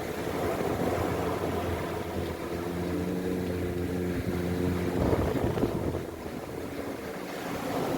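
An engine hums steadily over a rushing background noise and fades about six seconds in.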